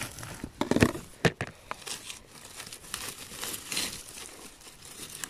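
Dry twigs, grass and moss on a forest floor rustling and crackling as they are brushed and pushed aside by hand, with a few sharper crackles in the first second and a half.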